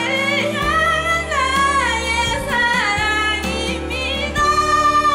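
A woman singing into a microphone over instrumental backing, moving through a melodic line and holding one long note near the end.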